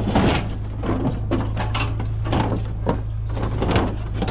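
Repeated knocks and clatters, roughly two a second, over a steady low hum.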